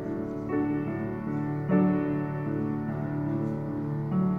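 Piano playing slow, sustained chords: new chords come in about half a second in, a louder one just under two seconds in, and another near the end.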